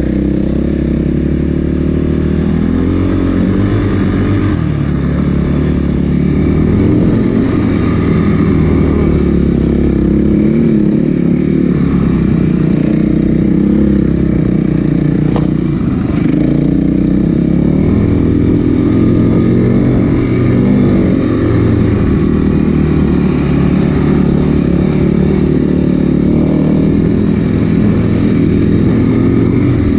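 Snowbike engine (a dirt bike fitted with a snow track kit) running under load while riding through snow, its revs rising and falling continually. A single sharp click comes about halfway through.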